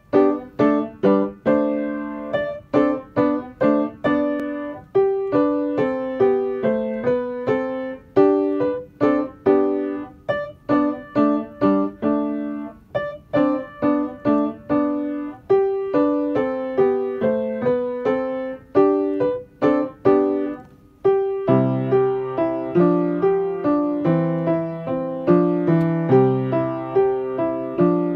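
Upright piano playing a minuet and trio, one note struck after another at an even, moderate pace. There is a brief break about three-quarters of the way through, after which deeper bass notes sound under the tune.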